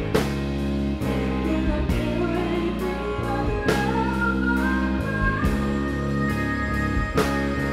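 Live pop band playing: a female lead singer holds long, wavering notes over keyboards, bass and drums, with a cymbal crash about every three and a half seconds.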